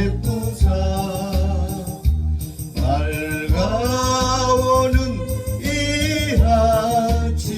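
Korean gospel song: a solo singer over a band backing track with a steady bass beat, holding long notes with vibrato about four seconds in and again near the end.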